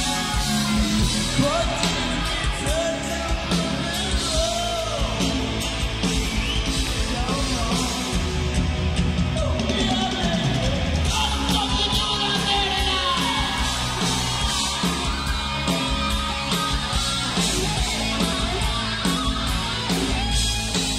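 Live hard rock band playing, with a singer's voice wailing over guitar, bass and drums.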